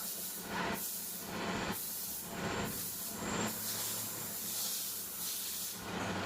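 Compressed air hissing in a series of short blasts, then a longer blast until near the end, over a steady low hum.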